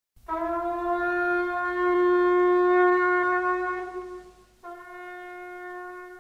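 A wind instrument holds one long, steady note. It breaks off briefly about four and a half seconds in, then sounds the same note again more quietly.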